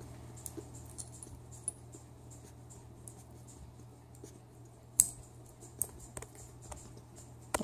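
A raccoon pawing and nosing at its toys: faint rustling and small plastic clicks and ticks, with one sharper click about five seconds in and another near the end.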